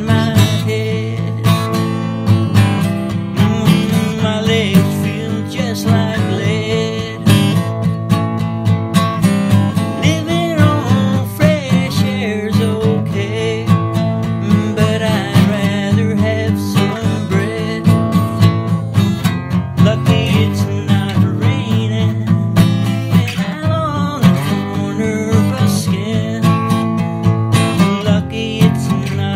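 Instrumental passage of a song: acoustic guitar strumming with a melodic line playing over it.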